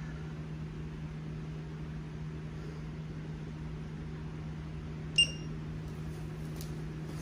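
Steady low mechanical hum, with one short, sharp high-pitched beep about five seconds in.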